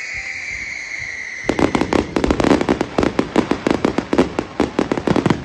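Fireworks display: a high, steady, slightly falling whistle, then about a second and a half in a rapid barrage of sharp crackling bangs, many a second, which cuts off suddenly near the end.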